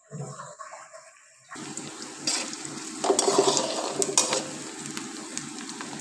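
Chopped onions sizzling in a spoonful of hot oil in a metal pan, cooking only until they change colour. The sizzle starts suddenly about a second and a half in, with a metal spatula clicking and scraping against the pan as they are stirred, loudest around the middle.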